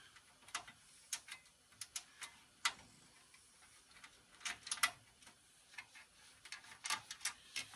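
Faint, irregular clicks and light ticks of hands working at the back of a steel desktop computer case, starting to remove its side panel.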